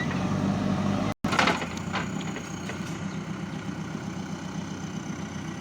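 JCB 3DX backhoe loader's diesel engine running steadily. A little over a second in, the sound cuts out for an instant, then a few sharp cracks follow before the engine carries on evenly.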